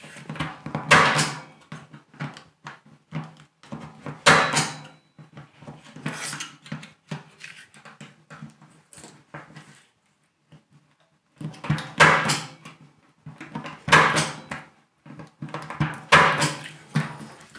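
Punch-down tool seating and trimming Cat6 conductors into the metal contacts of a keystone jack: a series of sharp snapping clacks, the loudest about two seconds apart, with a pause of a few seconds in the middle. The speaker calls the tool a little bit noisy.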